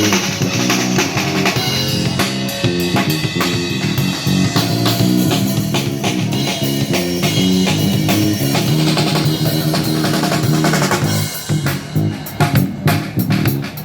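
Busker band playing live at a sound check, led by a drum kit with kick, snare and rimshots over a bass line. About eleven seconds in the playing thins out to sharper, separated drum hits.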